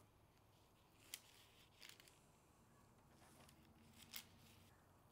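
Near silence with a few faint, short scraping ticks, about three: a fillet knife being worked along the skin to take the skin off a raw tuna fillet.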